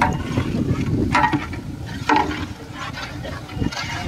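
A long metal ladle stirring thick biryani masala gravy in a huge aluminium pot, with a steady sloshing noise and several scraping knocks against the pot's side.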